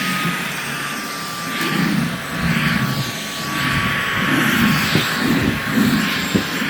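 Shark Detect Pro cordless vacuum running at suction: a steady motor whine over rushing air that swells and fades repeatedly, with a few sharp clicks near the end.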